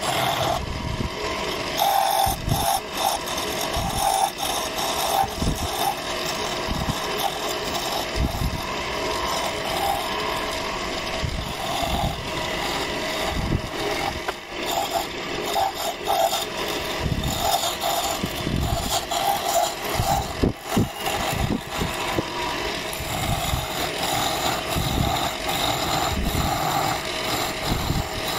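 Wood lathe running steadily while a hand-held chisel cuts a thin spindle, the cutting and scraping of the tool on the spinning wood coming and going in short, irregular spells.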